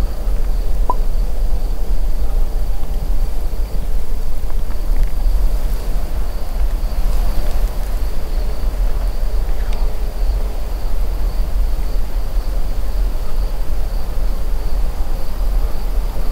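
Evening insects, crickets or similar, calling in a steady unbroken high-pitched drone over a constant low rumble.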